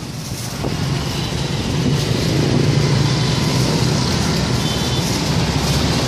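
A motor vehicle's engine running close by: a steady low rumble that grows louder over the first two seconds and then holds.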